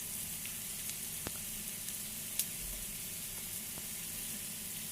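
Sliced sausage, onion and garlic sizzling steadily in hot oil in a frying pan, with a couple of light clicks.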